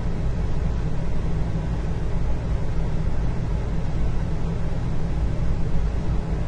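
Steady indoor ambience: a continuous low rumble with a fainter hiss above it and no distinct events.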